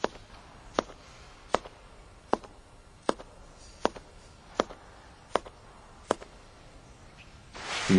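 Slow, evenly paced footsteps, sharp hard-soled steps a little over one a second, nine in all. Near the end a sudden loud burst of noise with a low thud cuts in.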